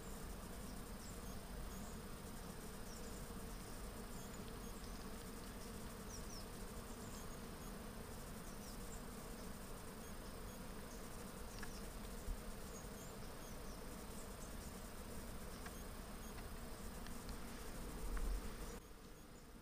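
Many bees buzzing steadily as they forage at a tree in full blossom, a continuous low drone. A short louder rumble comes near the end.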